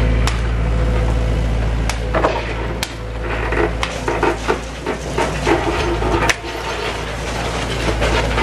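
Compact excavator's diesel engine running steadily beneath demolition noise: several sharp knocks and loose clattering of timber and broken building debris.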